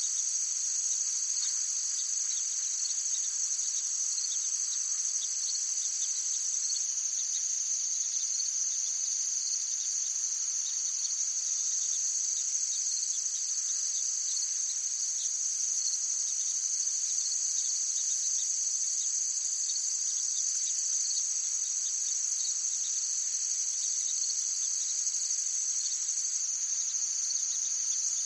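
Steady chorus of insects, crickets or katydids, trilling continuously in high-pitched bands, as forest ambience.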